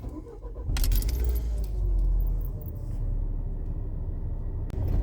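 Keys jangle, then a camper van's engine starts and runs with a steady low rumble.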